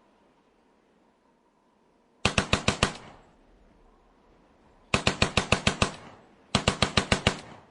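Automatic gunfire: three short bursts of rapid shots, about ten a second, starting a couple of seconds in, each burst ending with a brief echo.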